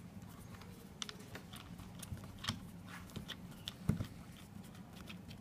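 A screwdriver backing out a long Torx screw from the cover of a Tesla Wall Connector: faint, irregular small clicks and scrapes, with a sharper knock about four seconds in, over a low steady hum.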